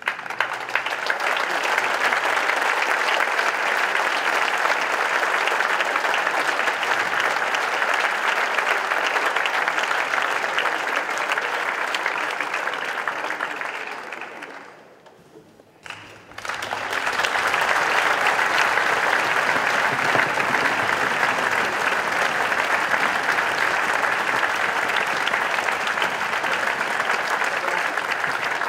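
Audience applause, a dense steady clapping. It fades down about halfway through, then starts again abruptly about a second later and carries on.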